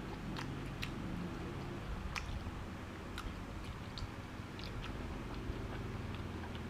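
A man eating slices of raw beef: scattered wet mouth clicks and chewing, over a steady low hum.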